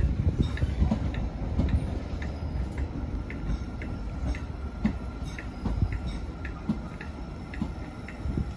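Gatwick Express Class 387 electric train rolling slowly in over the station pointwork: a low rumble that fades as it slows, with wheels clicking over rail joints about twice a second. A faint steady whine comes in a couple of seconds in.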